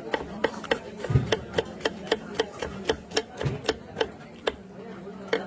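Kitchen knife slicing a green bell pepper into strips on a wooden board: quick, even knocks of the blade on the board, about four a second, with two duller thumps about a second in and near the middle.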